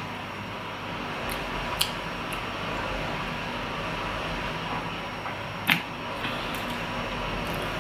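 A dishwasher running with a steady noise. A few sharp clicks of eating sit over it, the loudest a little before the end.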